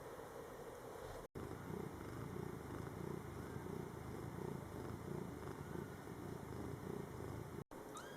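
Cat purring steadily in a low pulsing rumble, broken by two brief silent gaps, with a few faint high kitten squeaks.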